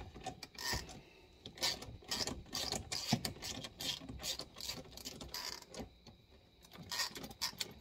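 Socket ratchet wrench clicking in short runs as its handle is swung back and forth, with brief pauses. It is turning the forcing screw of a homemade gear puller against a seized ATV brake drum.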